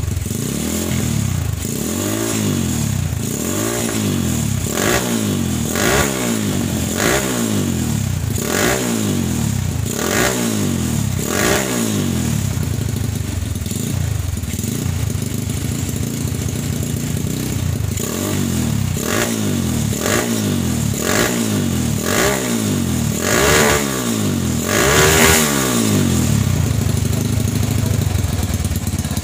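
Honda single-cylinder four-stroke motorcycle engine revved through a newly made handmade racing exhaust. The throttle is blipped over and over, about once a second, with the pitch rising and falling each time. In the middle it runs more steadily, and the highest revs come near the end.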